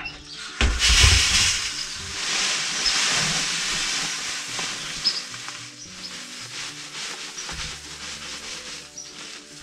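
Seed pouring: tipped from a bucket into a barrel drum mixer with a thump about half a second in, then poured from a sack into a plastic bucket as a steady rushing hiss that fades over the next few seconds.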